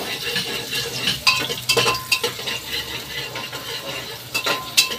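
Metal spoon stirring and scraping inside a pressure cooker, clinking against its sides several times, while sliced onions fry in hot oil with a light sizzle. The onions are being browned.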